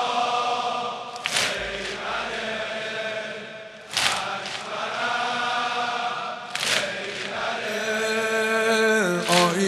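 Chanted Shia mourning lament (noha) sung by a male eulogist with the congregation, punctuated by the mourners' unison chest-beating (sineh-zani): four heavy slaps, one about every two and a half seconds.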